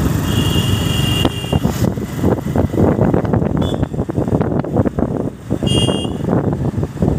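Motorbike riding along a road: engine running with heavy wind buffeting on the microphone. A high beeping tone lasts about a second near the start and sounds again briefly near the six-second mark.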